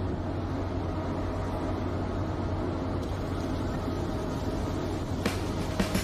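Steady drone of a fishing trawler's engine and deck machinery as the full trawl net is hauled in, with a few sharp knocks near the end.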